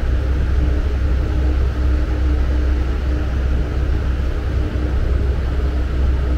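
Steady low rumble of a passenger ferry's engines under way, with a faint constant hum and an even hiss of wind and water over it.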